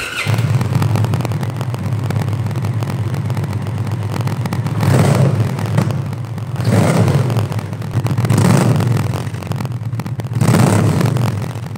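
Indian Pursuit's liquid-cooled V-twin idling through its stock factory exhaust, then revved four times from about five seconds in, each throttle blip rising and falling back to idle.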